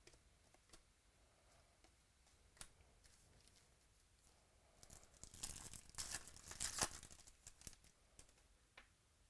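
A trading-card pack wrapper being torn open and crinkled: a dense crackling burst a little past halfway, lasting about two seconds. Light clicks of cards being handled come before and after it.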